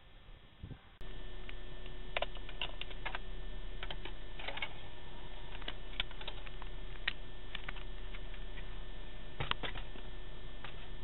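Irregular light clicks and ticks over a steady hum inside a Ford Mustang's cabin while the dashboard CD player loads a disc, starting after a quieter first second.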